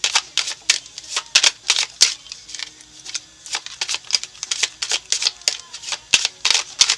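Tarot cards being shuffled by hand: a steady run of quick, irregular snaps and clicks as the cards slap together.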